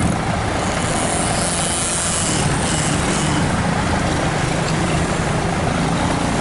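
Tour bus diesel engine running steadily, a low drone under broad road noise, with a brief rush of high hiss around the middle.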